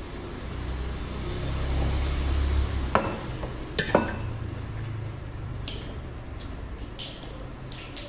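Drinking vessels, steel tumblers and a ceramic cup, knocking down on a table: two sharp clinks, about three and four seconds in, over a low steady rumble.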